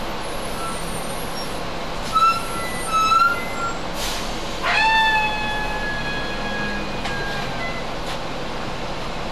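Bus air brakes squealing, with two short squeals followed by a brief hiss of released air. A stronger squeal of just over a second comes after the hiss. All of this sits over a steady drone.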